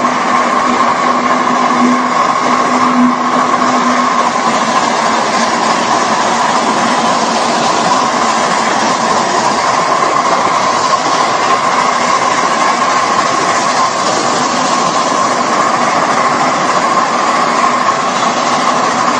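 Ride-on live-steam 4-4-2 Atlantic scale locomotive and its riding cars running along the track: a loud, steady running noise with no pauses.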